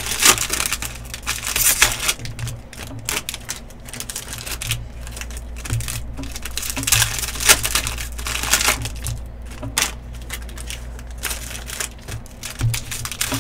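Foil wrappers of trading-card packs crinkling and tearing as they are ripped open by hand, in irregular bursts.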